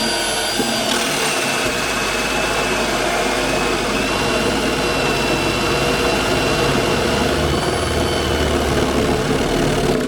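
Power drill turning a 1 1/8-inch hole saw, cutting a cord hole through the back panel of a wooden cabinet. The motor runs steadily for about ten seconds with small shifts in pitch as the saw takes the load, then stops at the end as the cut finishes.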